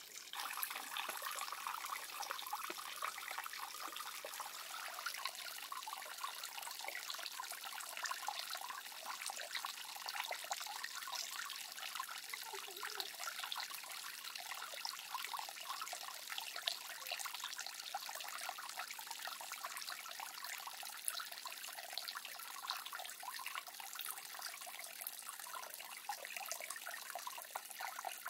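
Water trickling and splashing steadily: a constant hiss of running water dotted with many small drips and splashes.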